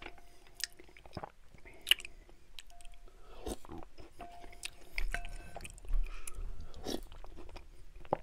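Wooden spoon stirring and scraping through cream of mushroom soup in a large glass bowl, knocking the glass several times so that it gives short ringing clinks, with soft chewing in between.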